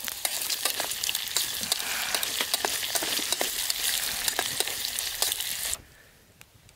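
Vegetables sizzling as they fry in a metal pot over a wood fire, a dense hiss with many sharp crackles as they are stirred. The sizzle cuts off suddenly near the end, leaving only a few faint ticks.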